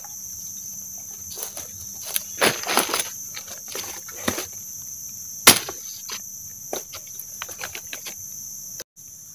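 Dry leaf litter crackling and twigs snapping as a forest vine is pulled and hacked with a machete, with one sharp crack about five and a half seconds in. A steady high insect drone runs underneath.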